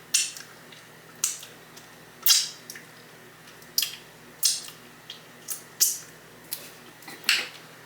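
Close-miked eating sounds of chicken wings being bitten and chewed: about nine short, sharp mouth noises at irregular intervals.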